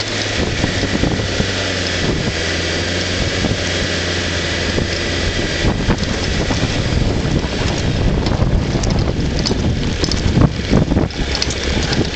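Frontera 4x4's engine running at low speed as it drives along a rutted, muddy off-road track, with wind rushing over the microphone. In the second half, irregular knocks and thumps of the body and suspension bouncing over the ruts.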